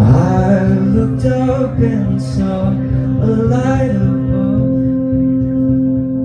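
Live rock band playing a sustained chord, with a male voice singing a phrase over it for the first four seconds or so, then the chord ringing on alone.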